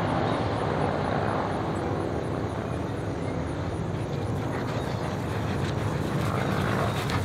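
A steady engine drone with a faint low hum.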